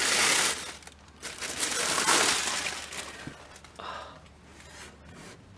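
Tissue paper crinkling and rustling as it is pulled off a doll box: a stretch at the start, a longer one from about a second in, and a short one near four seconds.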